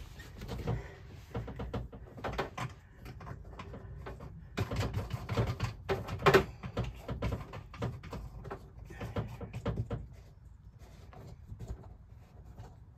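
Irregular knocks, bumps and rustling from a person wedged inside a sink cabinet, working up behind the sink and handling the faucet's mounting parts. The loudest knock comes about six seconds in, and it goes quieter for the last few seconds.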